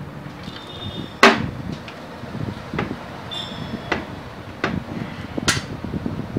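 Metal nuts and bolts being tightened by hand with a makeshift tool on a plastic box, giving about five sharp clicks and knocks, the loudest about a second in.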